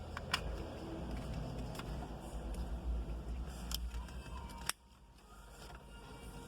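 Sharp plastic clicks and handling noise over a low rumble as wiring-harness connectors are plugged into a car multimedia screen. A loud click comes near the end, and the rumble drops away at that moment.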